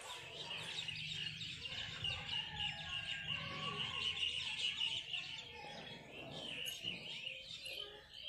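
Small birds chirping rapidly and continuously, densest in the middle.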